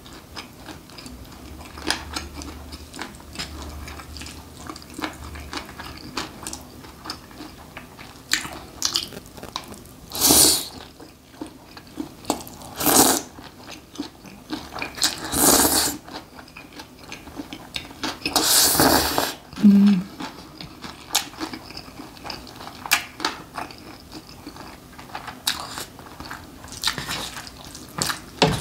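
Close-up eating sounds: spicy mixed noodles slurped in about four long, loud pulls through the middle of the stretch, between chewing and light clicks of metal chopsticks on a bowl.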